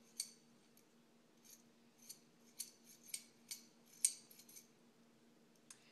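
Small metal C-clamp's screw being turned by hand to close it: about nine light metallic clicks, irregularly spaced, as the sliding T-handle and threaded screw knock metal on metal.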